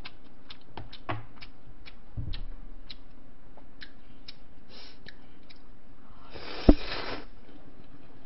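Sounds of a person eating ramen: light scattered clicks of chopsticks against the bowl and small mouth sounds, then about six and a half seconds in a short slurp of noodles with a sharp knock in it.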